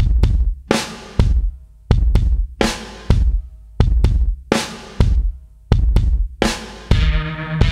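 Background music: a steady drum-kit beat of kick and snare with hi-hat, a hit about every 0.6 seconds. A bass line and sustained notes come in near the end.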